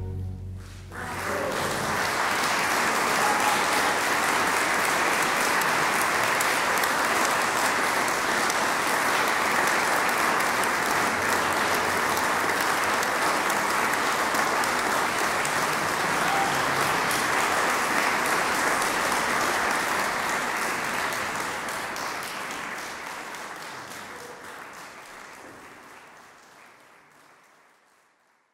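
An orchestra's final chord cuts off at the very start, then an audience applauds, starting about a second in and holding steady before fading away over the last several seconds.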